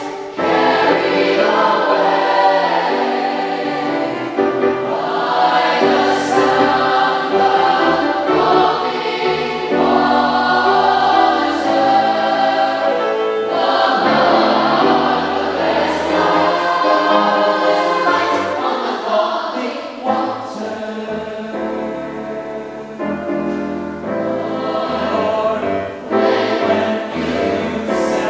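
Children's choir singing a choral anthem in many parts, holding chords that move from one to the next without a break.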